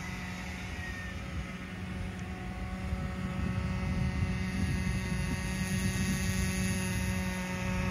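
Distant nitro engine of a radio-controlled speedboat buzzing at a steady pitch, growing louder about three seconds in.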